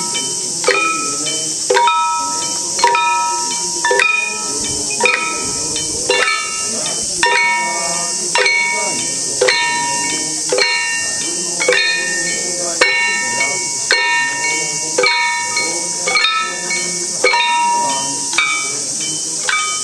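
Small hand-held gongs struck in a steady beat about once a second for the nembutsu dance, each stroke ringing with several metallic tones. Under it runs a steady high hiss of cicadas.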